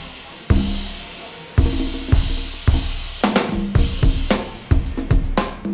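Drum kit playing: a couple of spaced kick-drum hits with cymbal wash, then a steady beat of kick and snare about twice a second with cymbals and hi-hat.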